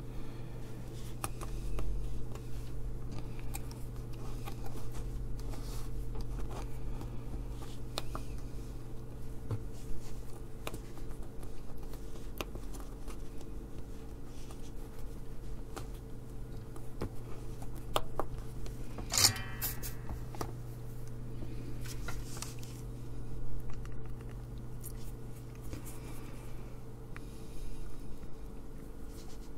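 Quiet bench work: small clicks, taps and scrapes of a soldering iron and hand tools on a circuit board while switches are tacked in place, over a steady low hum. One louder scrape comes about nineteen seconds in.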